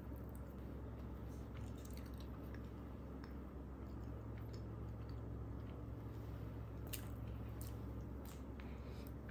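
Wooden spreader squishing and scraping soft cream cheese onto thick white bread, then faint bites and chewing, with small scattered clicks over a steady low hum.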